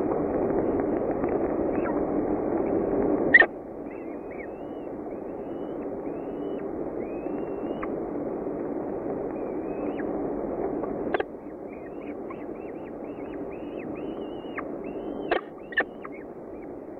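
Falcon nestlings giving many short, high, thin begging chirps while being fed, over a steady hiss. A few sharp clicks come about three seconds in, about eleven seconds in, and twice near the end.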